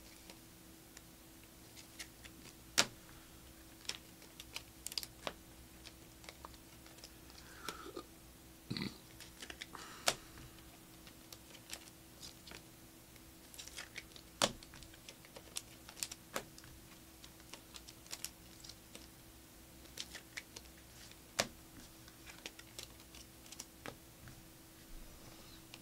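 Trading cards being handled and sorted on a desk: scattered, irregular light clicks and taps of stiff cardboard cards against each other and the table, over a faint steady hum.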